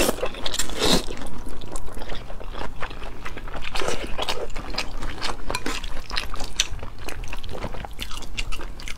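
A person slurping up and chewing a mouthful of mianpi, wide cold wheat-starch noodles, close to the microphone. There is a louder slurp near the start, then wet chewing with many small clicks.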